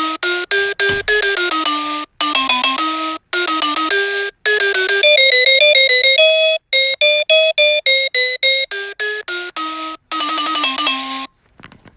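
Reizen talking clock playing an electronic alarm melody: a tune of short, separate beeping notes in mostly falling phrases, stopping abruptly near the end.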